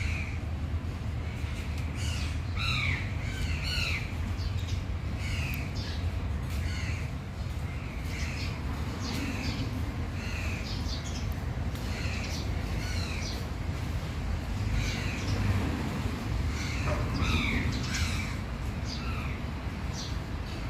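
Birds calling over and over, short harsh squawking calls every second or so, over a steady low rumble.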